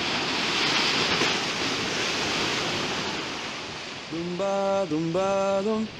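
Sea waves breaking, a steady rush of surf. About four seconds in, a slow melody of held notes that step in pitch begins over it.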